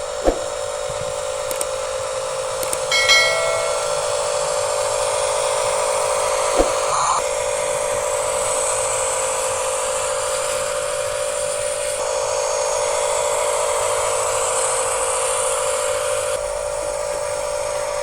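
Huina 1536 RC dump truck's small electric drive motor and gearbox whining steadily, with two sharp clicks and a brief chiming tone about three seconds in.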